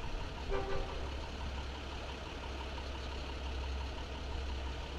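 Diesel locomotive engine of an EMD DE30AC running with a steady low rumble as a commuter train pulls into the station.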